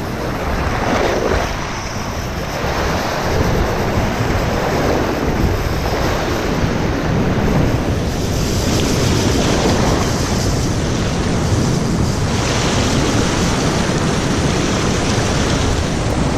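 Waves washing on the shore, with wind buffeting the microphone; the noise swells and eases without a break.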